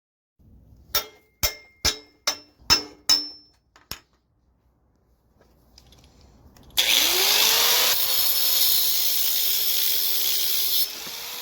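A run of six or seven sharp metal hits, each ringing briefly, about one every half second. Then, about seven seconds in, an electric grinder starts suddenly and runs loud and steady on the metal bracket, its motor pitch rising as it spins up and dropping in level near the end.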